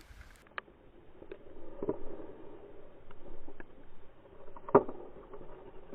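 Ice skates scraping and gliding on outdoor rink ice, with several sharp clacks, the loudest about three-quarters through.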